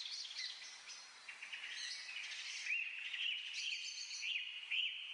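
Small birds chirping and singing, several overlapping calls of quick short notes, with a repeated sweeping call coming in about halfway through, over a steady hiss.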